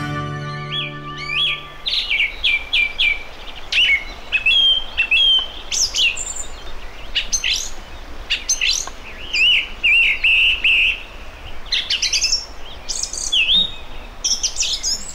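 Several songbirds singing and calling: a busy run of short chirps, whistled phrases and a quick trill, over a faint steady low rumble. The tail of a music track fades out in the first two seconds.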